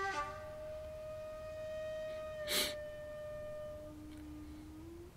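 Soft background music: long held notes in a flute-like woodwind tone, one note held for about three and a half seconds, then a lower note near the end. A brief breathy puff about two and a half seconds in.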